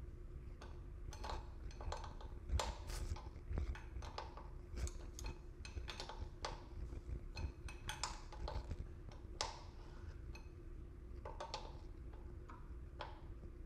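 Irregular light metallic clicks and taps as a pedal wrench is worked on a bicycle pedal's spindle, tightening the right pedal into the crank arm.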